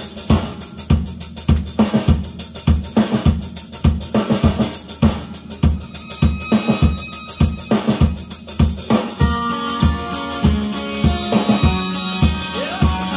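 A rock track played from a vinyl record on the Realistic LAB-400 turntable: a steady drum-kit beat alone at first, with pitched instruments joining about nine seconds in.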